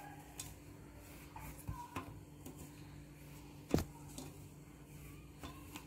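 Light handling noises and scattered soft knocks as yarn is wound round the legs of a metal chair, with one sharper knock just under four seconds in, over a steady low hum.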